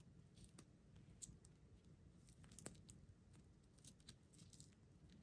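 Faint, scattered crinkles and clicks of a plastic snack wrapper being handled, with one sharper click about two and a half seconds in.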